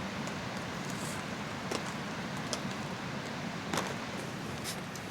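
Steady rain falling, with a few sharp light clicks scattered through it.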